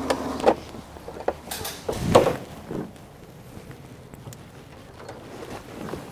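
A few short knocks and clicks from hands working on parts in a car's engine bay, the loudest about two seconds in, followed by quieter fumbling.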